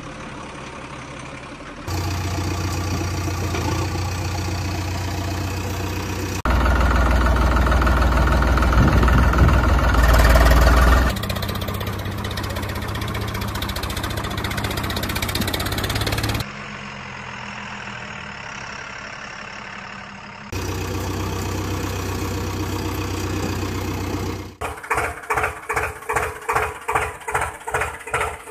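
Engine running and idling sounds in several sections that switch abruptly from one to the next, the loudest and deepest a few seconds in. Near the end it becomes a rhythmic chugging about two to three beats a second.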